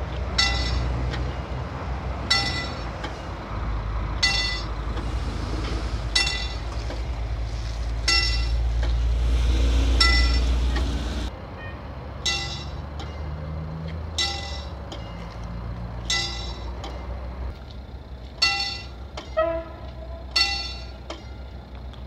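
Railway level-crossing warning bell ringing in a steady repeating pattern, about one strike every two seconds, with the crossing signals active. A low rumble runs beneath it and stops about eleven seconds in.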